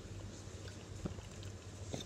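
A fork tapping faintly against a plastic bowl, twice, over a steady low hum of room noise.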